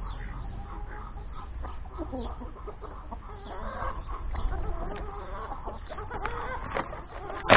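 A flock of domestic chickens clucking softly in short, scattered calls while they peck at grain.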